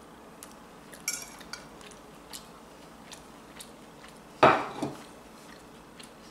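A few light clicks of a metal fork against a dish while eating pasta, with one louder short noisy sound about four and a half seconds in.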